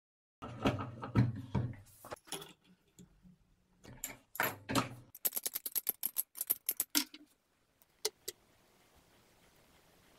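Metallic clinking and knocking as a brass pipe fitting is handled at a bench vise, then a quick run of sharp scraping strokes, about seven a second for two seconds, as a hacksaw blade is rasped across the fitting's male thread to roughen it. Two light clicks follow near the end.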